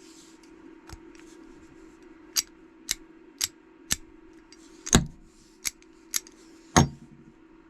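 Sharp metallic clicks of an AR-15/M4 bolt carrier group's steel parts being handled after reassembly: four light clicks about half a second apart, then four louder ones.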